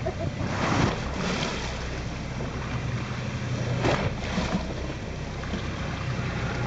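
Fishing boat at sea: a steady low engine hum under wind on the microphone and water washing against the hull. Two louder rushes come through, about a second in and again near four seconds.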